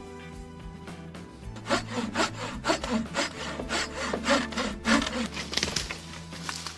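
Hand saw cutting through wood in quick back-and-forth strokes for a few seconds, over steady background music.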